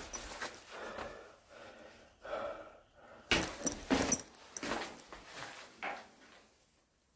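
Footsteps going down stairs. A run of louder, closer steps comes about halfway through, and they stop shortly before the end.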